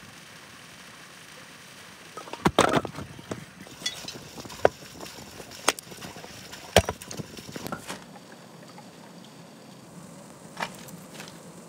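Split firewood logs knocking and clunking against each other as they are set down and stacked: a cluster of sharp wooden knocks a couple of seconds in, several more over the next few seconds, and a single knock near the end.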